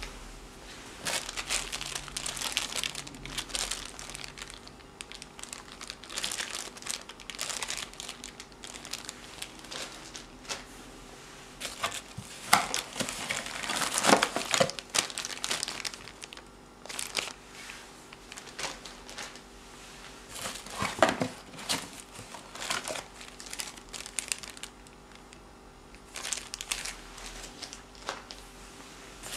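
Plastic packaging bags and bubble wrap crinkling in irregular bursts as cardboard packing is handled, loudest about halfway through.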